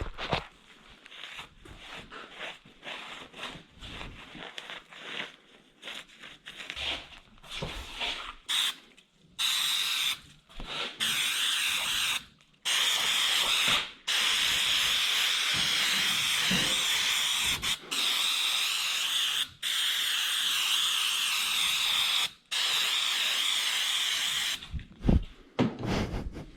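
Aerosol can of spray adhesive hissing in long sprays of one to four seconds with short breaks between them. Before that come scattered rubbing and knocking sounds of the surface being wiped and handled.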